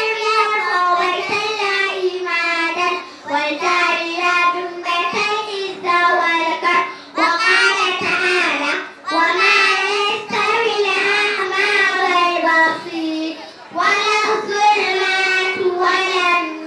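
A group of young children singing a song together in unison into a microphone, in short sung lines with held notes and brief breaks between them.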